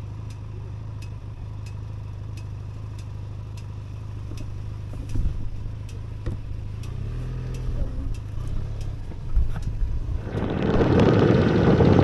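Motorcycle engine running at low speed, a steady low hum with a few low thumps from the rough dirt road. From about ten seconds in, a loud rush of wind noise on the microphone takes over.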